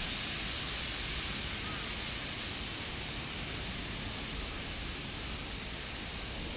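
Steady outdoor background noise: an even hiss with a low, unsteady rumble beneath it, and no distinct sound events.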